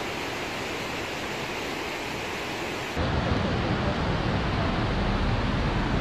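Steady outdoor ambient noise, an even hiss with no distinct events. About halfway through, the sound cuts to a louder noise with more low rumble in it.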